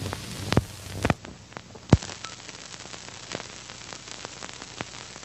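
Old-recording surface crackle: a steady hiss with scattered clicks and pops, a few louder ones in the first two seconds and the loudest just before two seconds in. The hiss turns duller about a second in.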